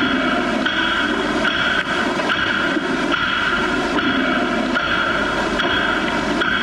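Didgeridoo playing a continuous drone, its tone swelling and shifting in a steady rhythm of roughly one pulse a second.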